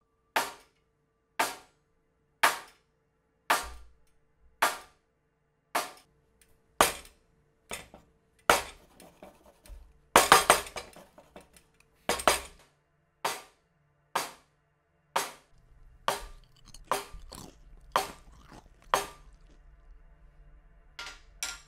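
A hammer striking a wooden block in hard, separate blows, roughly one a second, about twenty in all. Just before halfway comes a quick flurry of the loudest blows, and the strikes come faster near the end.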